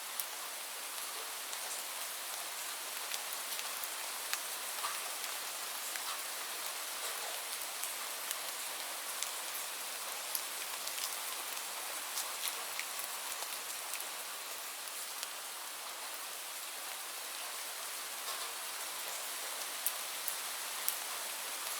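Steady rain falling, an even hiss with many small drops ticking close by.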